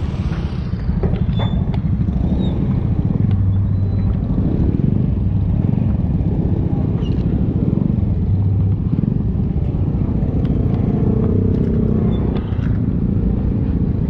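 Motorcycle engine running steadily at low speed close by, a continuous fast low putter with no revving.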